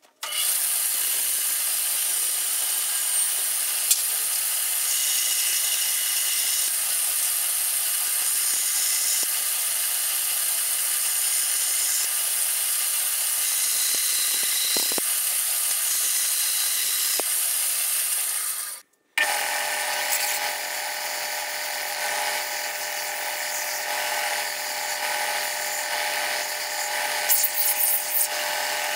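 A bandsaw running steadily while cutting a block out of a 2x4. After a sudden break about two-thirds of the way through, a benchtop belt sander runs as the wooden block is held against the belt and rounded into a dowel.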